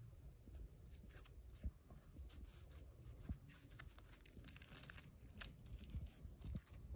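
Soft bread being torn and crumbled by hand: faint, irregular little crackles and tearing sounds, thickest a little past the middle.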